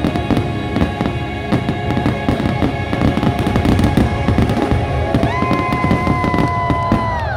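Fireworks finale: a rapid, dense barrage of firework bursts, booming and crackling over the show's music. About five seconds in, a long held note sounds over the barrage.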